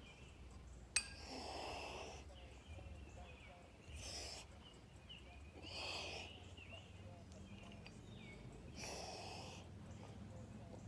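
A person breathing hard while exercising, with a loud rush of breath about every two to three seconds. A single sharp click comes about a second in.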